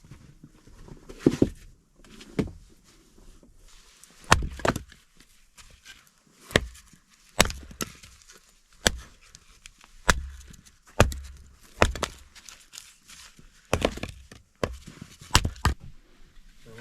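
Firewood being worked: a series of sharp wooden knocks with low thuds, irregular, roughly one a second.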